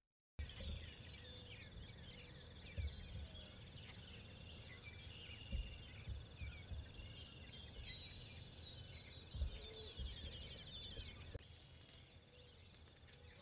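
Outdoor ambience of birds chirping and singing, many short calls overlapping, with a steady high trill through the first half and a few faint low thumps.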